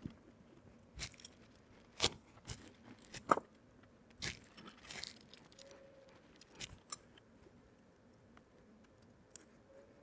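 Thin wires being handled and pressed into plastic mounting clips on an LED profile rail: scattered small clicks, taps and scrapes at irregular moments, with one sharper click about seven seconds in.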